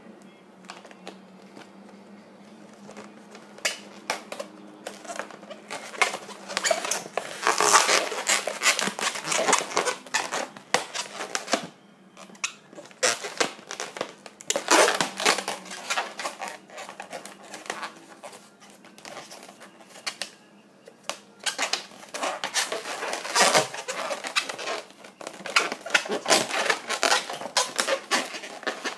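Inflated latex modelling balloons rubbing and squeaking against each other and against the hands as they are twisted and locked together, in irregular bursts with brief quieter pauses.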